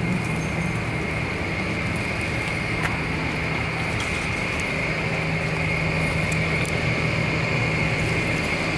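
A steady, unchanging mechanical hum like a running engine, with a constant hiss over it and a few faint clicks.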